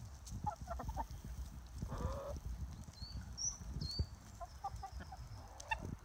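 Backyard hens clucking in short, scattered calls as they peck at food scraps, with a few brief high chirps mixed in.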